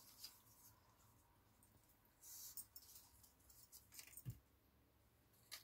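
Near silence, with a few faint rustles and a soft tap of card being handled.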